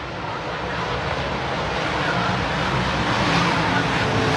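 Dirt modified race car engines running on the track and growing steadily louder as they approach.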